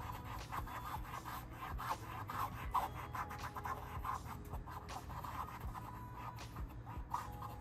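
Paintbrush bristles scratching in many short, irregular strokes as acrylic paint is brushed onto the painting surface.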